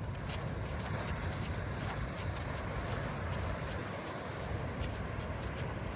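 Outdoor ambience while walking: wind rumbling on the microphone over a steady wash of background noise.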